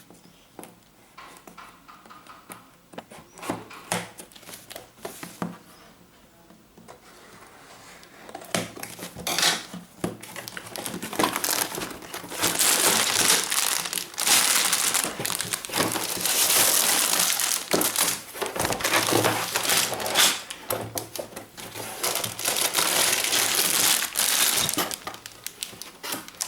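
Packaging of a Lego set being opened and handled: scattered rustles and clicks at first, then loud, continuous crinkling and crackling of plastic and cardboard from about eight seconds in.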